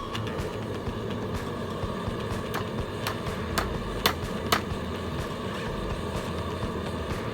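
Forge fire running with a steady rushing noise and a low hum, with sharp clicks and ticks scattered irregularly over it.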